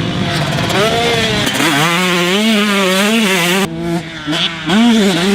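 Motorcycle engine revving, its pitch rising and falling again and again as the bike is ridden. The sound changes abruptly a little past halfway.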